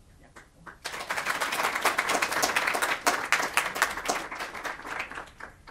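Audience applauding: a few scattered claps, then a burst of applause lasting about four and a half seconds that thins out and stops near the end.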